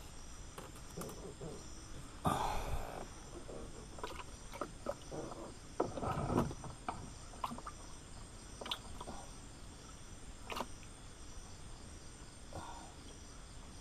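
Insects chirping in an evenly repeated high pulse, with scattered knocks and clatters over it. The loudest sounds are short rustling bursts about two seconds in and again around six seconds.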